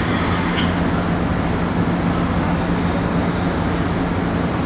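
Alstom 6000-series Metro railcar standing with its doors open, its onboard equipment running with a steady hum and a low tone under an even rush of noise. A faint tick about half a second in.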